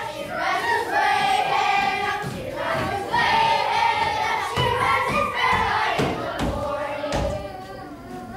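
A group of young children singing together in unison, with long held notes, as they dance on a wooden stage. A few heavy thumps come about halfway through.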